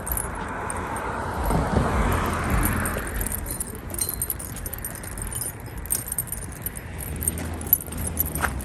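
Keys jangling with light rattling handling noise, and a rushing sound that swells and fades over the first three seconds.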